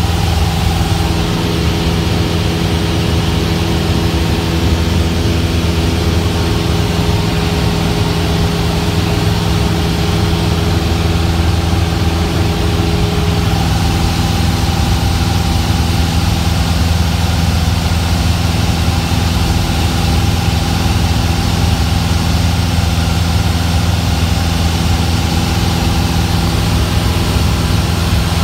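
Single-engine Cessna's piston engine and propeller running steadily in flight, heard inside the cabin as a constant drone; its higher hum changes slightly about halfway through.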